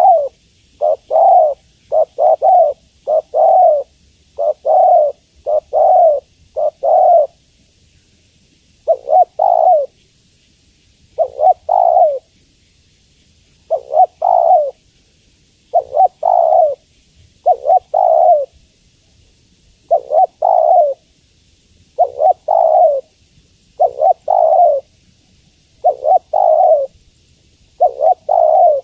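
Female spotted dove calling: a run of short, mellow coos, mostly in close pairs, repeated every couple of seconds with brief pauses. It is the call used to lure male spotted doves.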